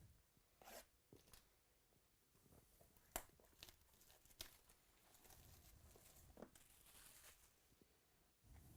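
Faint tearing and crinkling as a sealed trading card box's packaging is torn open, with a few sharp clicks.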